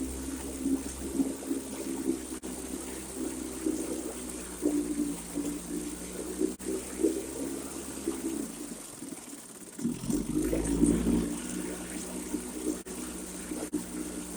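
1964 Johnson 3 hp two-stroke outboard motor running in a tank of water, with water churning along with the engine. About eight and a half seconds in the engine sound drops away, then returns louder about a second later.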